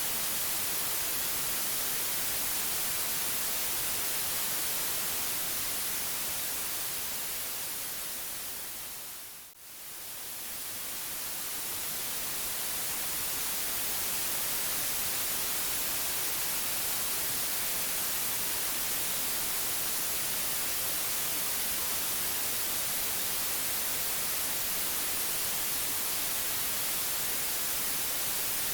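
Steady white noise hiss. It fades down to a brief dip about nine and a half seconds in, then swells back up to full level over the next few seconds.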